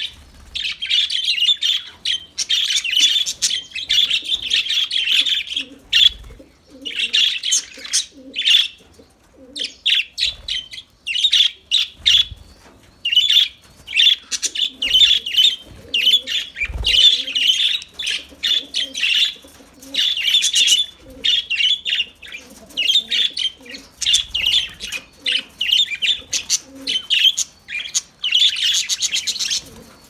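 A flock of budgerigars chattering and warbling, a dense run of quick chirps in bursts with short pauses between.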